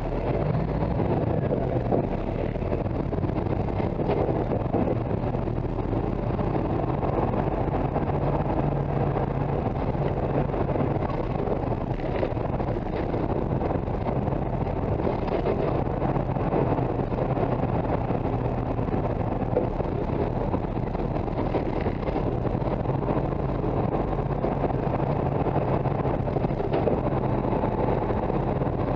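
Steady road noise and low drivetrain drone of a Hino Profia heavy truck on the move, picked up beneath the chassis beside the rear axle and its air springs.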